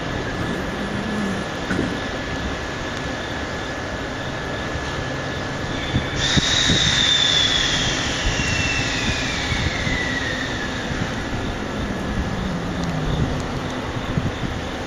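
Freight train rolling on the rails, a steady noisy rumble. About six seconds in it turns suddenly louder, and a high whine falls slowly in pitch over the next five seconds.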